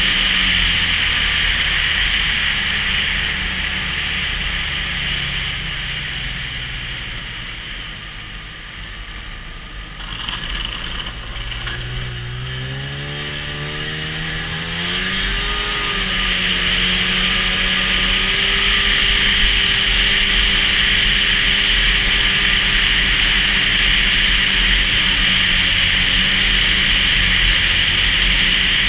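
Snowmobile engine under way: its note falls as the sled slows over the first several seconds, rises again as it accelerates, and then holds steady at cruising speed for the second half. A steady high hiss runs under the engine throughout.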